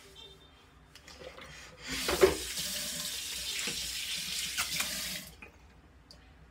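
Bathroom sink tap turned on about two seconds in, water running into the basin for about three seconds, then stopping.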